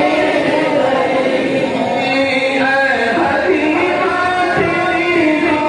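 Unaccompanied male voices chanting a naat, an Urdu devotional hymn in praise of the Prophet, sung with long held, wavering notes through a microphone.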